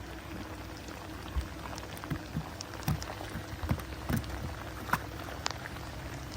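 Water trickling and splashing around a boat, with scattered small knocks and a steady low hum underneath.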